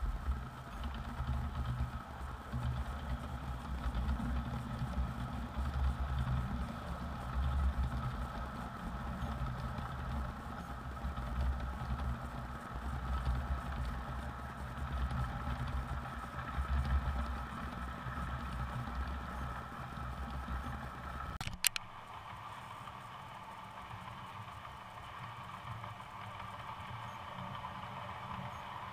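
O-gauge model of the Milwaukee Road Hiawatha passenger train running past close by on three-rail track: a low, uneven rumble of wheels and motor with some rattling. About three quarters of the way through, a sharp click, and the rumble drops away to a quieter steady hum.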